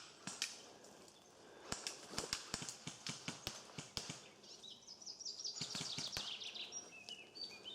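A songbird singing a fast run of short, falling high notes in the second half, after a spell of sharp, irregular clicks and snaps.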